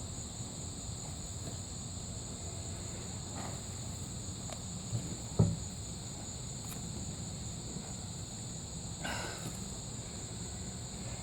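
Insects chirring steadily in a high, unbroken drone, with a couple of dull thumps about halfway through and a brief scraping rustle near the end from digging through the soil of a potato container.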